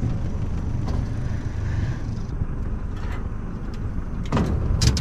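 An engine idling steadily with a low rumble, with a few sharp clicks or knocks near the end.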